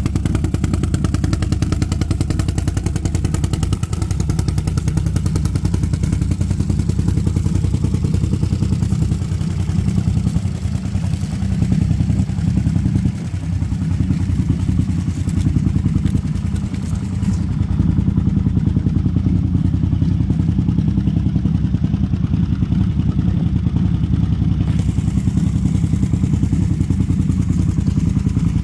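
Can-Am ATV's big-bore-kitted 840 V-twin engine idling steadily, a continuous low exhaust rumble.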